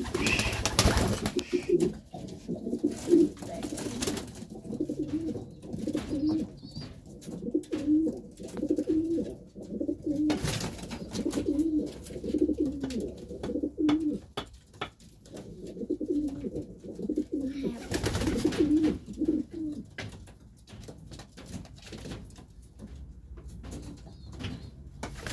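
Domestic pigeons cooing: low coos repeated in rolling runs, with short flurries of wing flapping now and then, the first right at the start.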